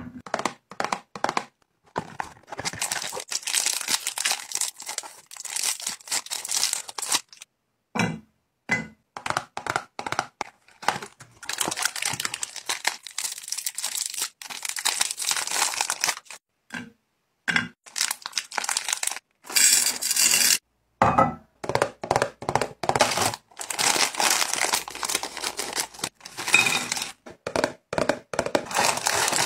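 Foil and plastic snack wrappers being torn open and crinkled by hand, in quick bursts of rustling broken by many short silences.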